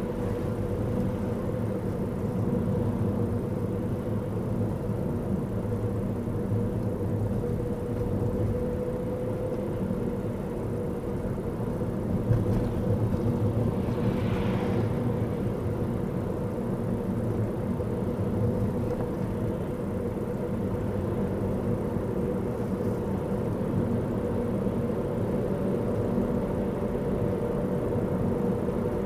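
Steady road and engine noise of a car driving along a highway, heard from inside the car as a low, even hum. About halfway through, an oncoming tanker truck passes close by with a brief rush of noise.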